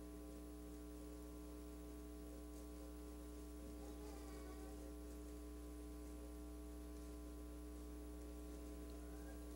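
Faint, steady electrical mains hum from the sound system: several fixed tones at once.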